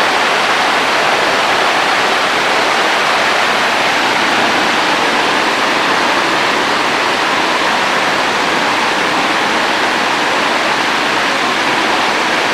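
Loud, steady rushing hiss that holds without change, with no speech.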